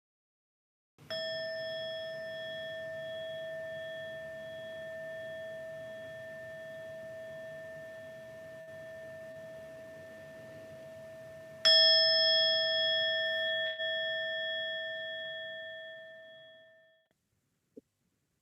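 Meditation bell struck twice, about ten seconds apart, each strike ringing on in a long, slowly fading tone; the second strike is louder. The bell marks the close of the sitting meditation.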